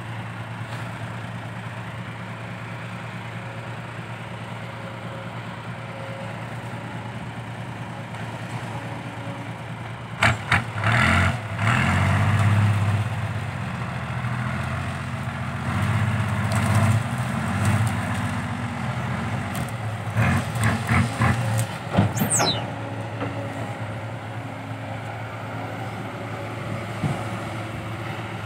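Isuzu Deca 195 dump truck's diesel engine, fitted with new triple side-exit exhaust tips, idling steadily. About ten seconds in it is revved hard in a run of uneven surges for roughly twelve seconds, with a brief falling whistle near the end of the revving, then drops back to idle.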